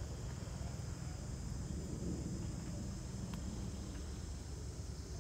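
Insects chirring steadily in a high band, over an uneven low rumble of wind on the microphone.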